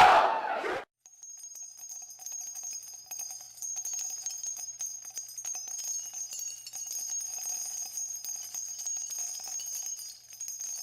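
A concert crowd yelling and cheering cuts off abruptly under a second in. After that there is only faint, high bell-like tinkling with a soft steady mid tone beneath it.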